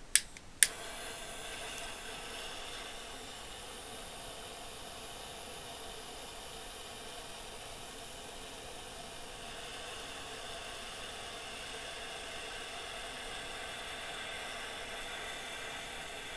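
A butane torch lighter clicks twice and catches, then burns with a steady hiss, as when heating the nail of a dab rig.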